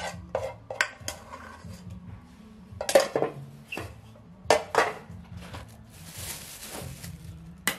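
Metal pots and dishes clattering as they are handled on a wooden table, with a run of sharp knocks and clinks. Near the end comes a crinkly rustle of a thin plastic bag being handled.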